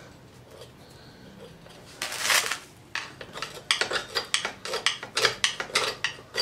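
Screwdriver scraping and clinking against the metal inside the outlet opening of a vintage Hoover Junior 119 upright vacuum, working at a part that has rusted itself on. One longer scrape about two seconds in, then a quick run of a dozen or so short, sharp metal-on-metal scrapes toward the end.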